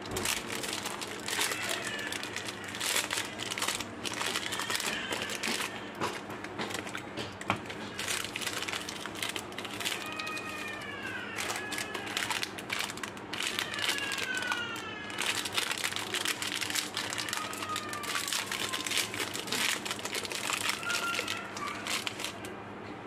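Foil-lined and plastic candy wrappers crinkling and crackling in the hands as they are peeled open, a steady run of rustling with sharper crackles.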